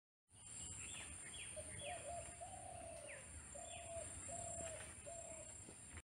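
Wild birds calling: several quick chirps falling in pitch, and a run of short low notes repeated about five times, over a steady high-pitched hum.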